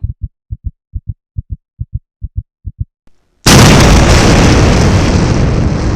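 Heartbeat sound effect: quick low thumps in pairs, a little over two pairs a second. Just past halfway a sudden loud explosion-like blast of noise breaks in, runs for about two and a half seconds, and cuts off abruptly.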